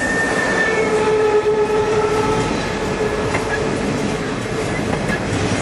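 Freight train rolling by: a steady rumble and clatter of wheels on rail, with a held tone dying away in the first half.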